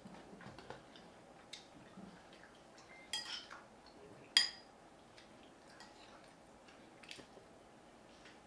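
Cutlery clinking and tapping against dishes during a meal: scattered light clicks, with two louder ringing clinks about three and four and a half seconds in.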